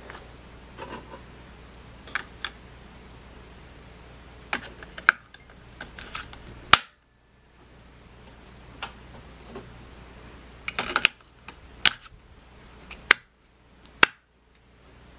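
Irregular clicks and taps of hard plastic as batteries are fitted into a Nerf Tactical Light flashlight and it is closed up and switched on, the sharpest clicks about seven seconds in and near the end.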